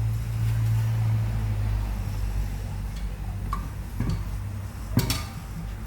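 Steady low electric motor hum, with a few sharp metallic clicks from about three and a half seconds in, the loudest about five seconds in.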